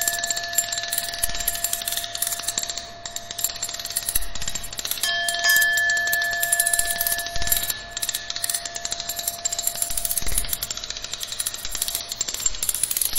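Experimental noise music: two steady, bell-like ringing tones held over a hissing, crackling haze. The tones swell again about five seconds in and fade out near the end.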